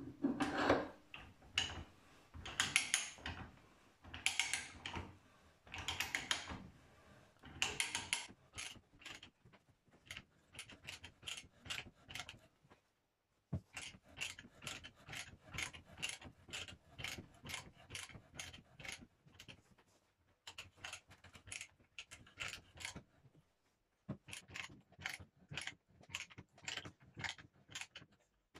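Hand ratchet pipe threader being worked on the end of a steel pipe, its pawl clicking in quick runs as the handle is swung back and forth. The clicks come in repeated bursts, with a pause of about a second twice.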